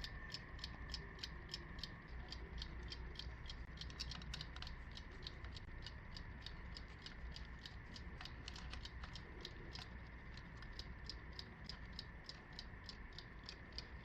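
Mechanical wind-up alarm clock ticking steadily and faintly, about four ticks a second.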